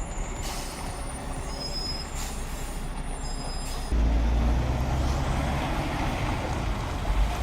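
Heavy logging truck running, with thin high brake squeals and short air hisses over the engine rumble. About four seconds in, the sound jumps to a louder, deeper engine rumble.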